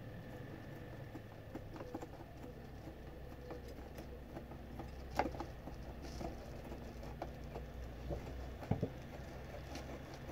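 Faint rustling, clicks and light knocks of small objects being handled and set down on a counter, over a low steady hum. There is a sharper knock about halfway through and another near the end.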